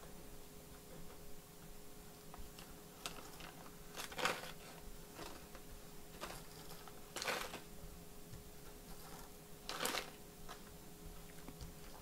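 Faint handling noise of small laptop parts on a workbench: scattered light clicks and knocks a second or two apart, over a faint steady hum.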